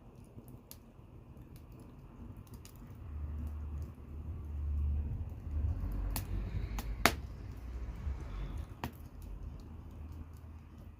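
Wood fire crackling in a fireplace, with scattered sharp pops, the loudest a few seconds in, over a low rumble that swells and fades in the middle.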